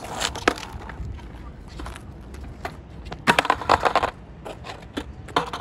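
Skateboard rolling on asphalt, with sharp clacks as the board is kicked up by its tail. A cluster of loud knocks comes about three seconds in.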